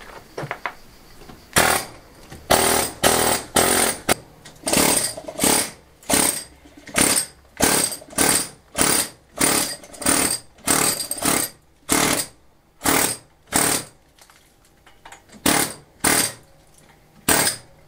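Electric demolition hammer chiselling stone and mortar out of an old rubble-stone wall around a window opening. It runs in short bursts of about half a second, roughly one a second, starting about a second and a half in, with a brief pause about fourteen seconds in.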